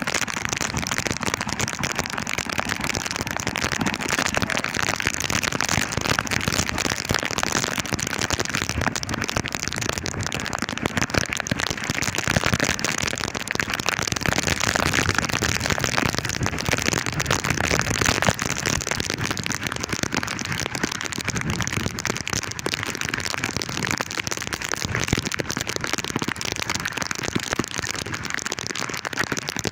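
Heavy rain falling steadily, a dense crackle of drops striking close to the microphone.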